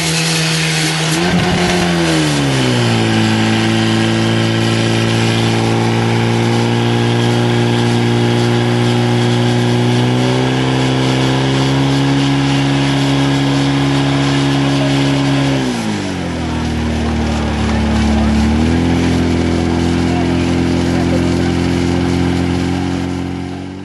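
Portable fire pump engine running hard while pumping water out to the hoses, its pitch dropping a couple of seconds in, lifting slightly around ten seconds, dipping sharply near sixteen seconds and picking back up near nineteen seconds. The sound fades out at the end.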